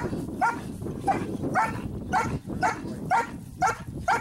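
A puppy barking steadily at a helper holding a bite pillow, about two sharp barks a second, in the agitation stage of protection training.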